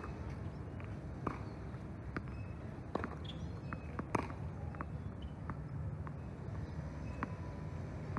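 A few sharp pops of tennis balls bouncing on a hard court and striking rackets, the loudest about four seconds in, over steady low background noise.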